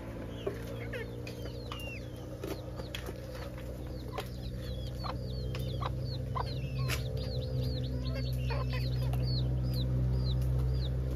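A flock of chickens in a run, clucking and making many short, high, downward-sliding chirps that grow busier through the second half, with a few sharp clicks. A steady low hum runs underneath and slowly grows louder.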